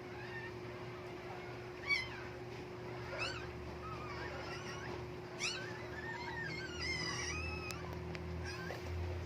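Dog whining: short, high-pitched squeals about two, three and five and a half seconds in, then a longer wavering whine, over a steady low hum.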